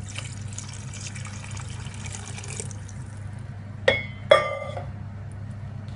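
Water poured into a pressure cooker of chicken curry, splashing steadily for about two and a half seconds as the water for the rice goes in. After a pause come two sharp ringing clinks about half a second apart, over a steady low hum.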